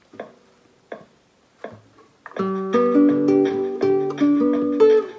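Three soft, evenly spaced clicks, then a nylon-string classical guitar comes in loudly about two seconds in, playing the plucked chords and melody of a song's introduction.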